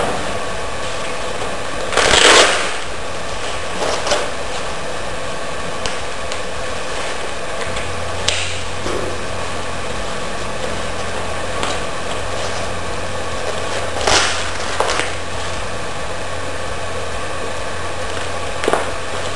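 A plate carrier being put on: a few short scratchy rips and rustles from its hook-and-loop fastened side flaps and nylon straps, the loudest about two seconds in and another about fourteen seconds in, over a steady background hiss.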